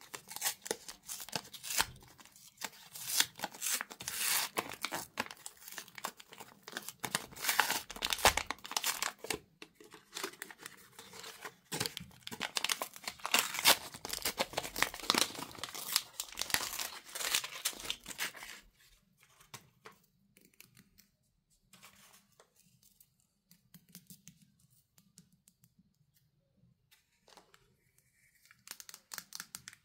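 Pink foil candy wrapper and its white paper liner crinkling and tearing as they are peeled off a cone-shaped candy by hand, busy crackling for about eighteen seconds. After that it drops to faint, scattered handling sounds, with a little crinkling again near the end.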